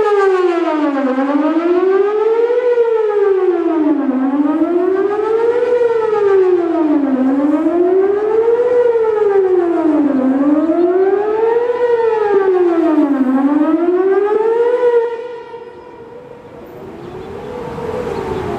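Whelen WPS 4008 electronic outdoor warning siren sounding a loud tone that sweeps steadily up and down in pitch, one rise and fall about every three seconds. About fifteen seconds in, the tone drops sharply in level and trails off in echoes.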